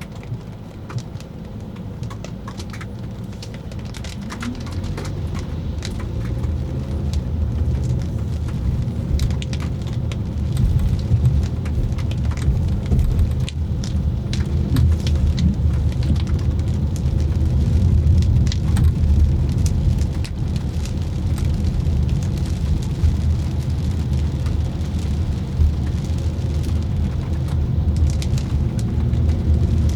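Raindrops ticking on a car's body and windshield over the low rumble of the car driving on a wet road. The rumble grows louder over the first several seconds, then holds steady.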